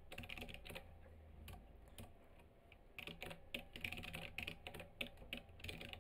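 Faint typing on a computer keyboard: separate keystrokes, a few scattered ones at first, then quicker from about three seconds in.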